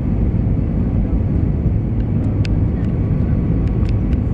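Steady cabin noise of an Airbus A320 airliner descending on approach: a low rumble of engines and rushing air heard from inside the cabin, with a few faint ticks in the second half.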